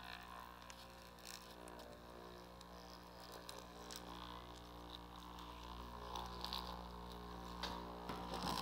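Loudspeaker driven at a low frequency by a function generator, giving a steady low hum with a blob of oobleck (cornstarch and water) churning on its cone. Faint scattered ticks sound over the hum.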